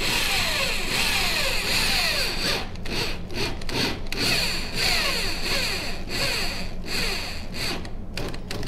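Power drill driving a stainless steel countersink screw, running in several short spells with a squeaky rubbing that falls in pitch again and again as the screw turns in.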